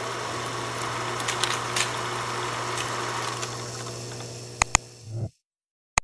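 Film projector sound effect: a steady whirring hum with hiss and faint crackles, ending in two sharp clicks and cutting off suddenly about five seconds in.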